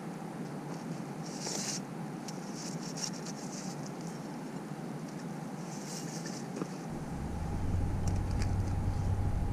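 A metal pipe scrapes gritty wet concrete in short hissy strokes as it is drawn along to screed the surface level. A steady mechanical hum runs underneath, and a low engine-like rumble swells from about seven seconds in and becomes the loudest sound.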